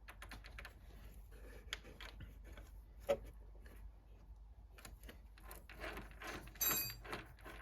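Faint, irregular metallic clicks and taps from the change gears of a Clark CL500 lathe being handled and meshed, with a sharper click about three seconds in and a short ringing clink near the end.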